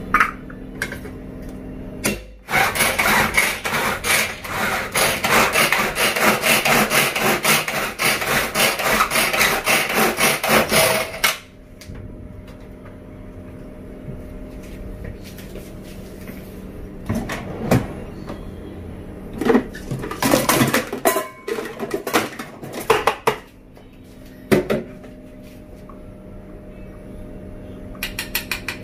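Pull-cord mini chopper whirring and rattling as its cord is yanked again and again, spinning the blades through garlic in the small plastic bowl. It runs in a long stretch of about nine seconds, then comes back in shorter bursts, with a few quick clicks near the end.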